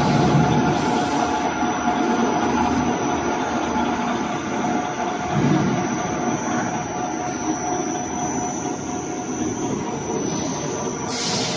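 A jacketed mixing kettle's stirring motor and gearbox running steadily: a continuous mechanical rumble with a constant hum. A short hiss comes near the end.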